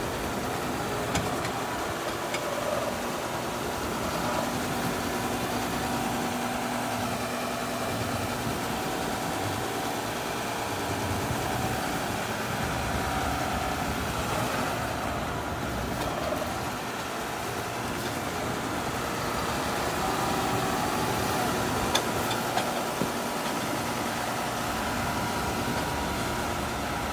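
John Deere 6155R tractor's diesel engine idling steadily, with no revving.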